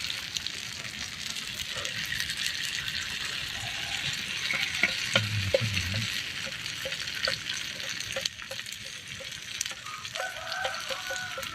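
Food frying in hot oil: a steady sizzle with many small pops and crackles.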